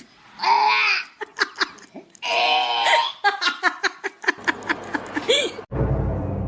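Laughter in bursts with short sharp noises between them, then a steady droning music cue starts near the end.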